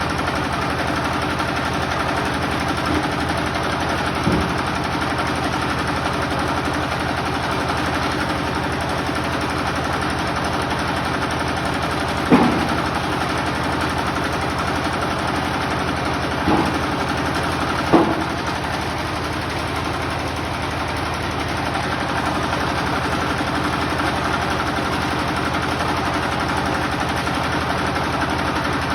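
Generator engine running steadily, with a few short knocks over it.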